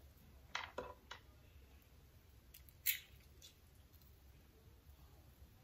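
Faint small clicks and taps of fingers handling halved calamondins and their seeds on a wooden cutting board: a few in the first second or so, and a sharper click about three seconds in.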